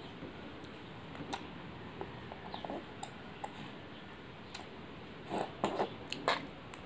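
A baby drinking from a feeding bottle: faint, scattered sucking and swallowing clicks, with a few louder clicks near the end as the bottle comes away from the mouth.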